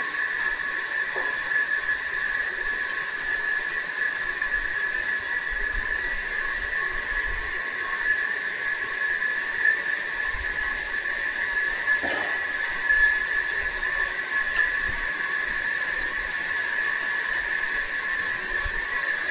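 A very long subway escalator running: a steady high-pitched whine with a fainter lower tone and a light hiss beneath.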